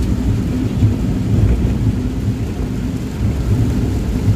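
Steady low rumble inside a vehicle driving through heavy rain on a wet highway, with a fainter hiss of rain and tyres on the wet road.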